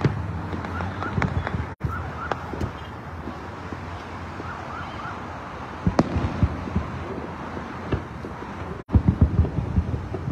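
Distant fireworks booming over steady highway traffic noise, a few scattered bangs and then a quick cluster of them near the end. A faint siren yelps in the background, and the sound cuts out briefly twice.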